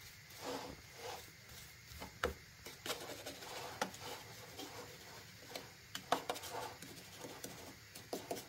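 Metal spoon pressing and scraping a buttery biscuit-crumb base into a metal springform cake tin: irregular scrapes with a few sharp clicks.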